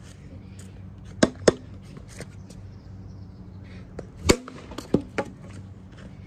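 Sharp hollow knocks of a wiffle ball game, the plastic ball against the plastic bat and the ground: two quick knocks about a second in, the loudest a little after four seconds, then two more close together near the end, over a low steady hum.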